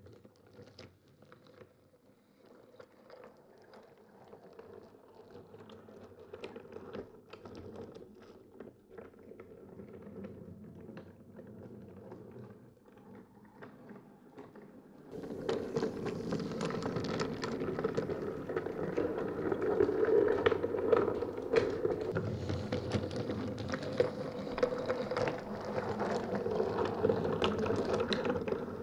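Wooden toy train rattling along wooden track: a dense run of small clicks and knocks over a steady hum. It grows slowly louder, then turns abruptly louder and fuller about halfway through.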